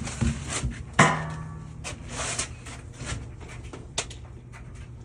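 Handling knocks and clicks, with one sharp clank about a second in that rings on briefly.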